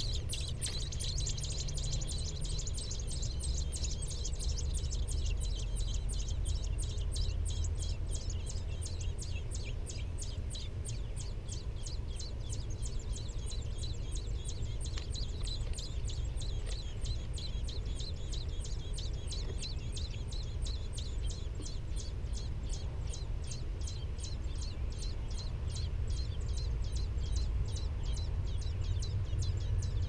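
American robin nestlings begging: short, high chirps repeating about four times a second, busiest in the first few seconds while the parent feeds them. A steady low rumble runs underneath.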